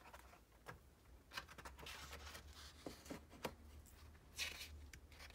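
Faint handling of a paper picture book, its pages being turned: soft paper rustling with a few light taps and clicks, loudest about two seconds in and again near four and a half seconds.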